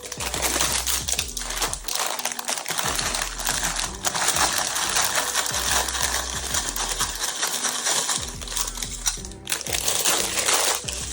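Plastic LEGO parts bags being torn open and crinkled, with small plastic bricks clicking and rattling, over background music.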